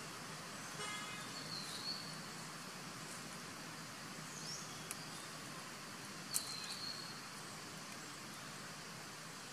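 Outdoor ambience: a steady high hiss, a short pitched call near the start, a few brief high chirps, and a sharp click about six seconds in.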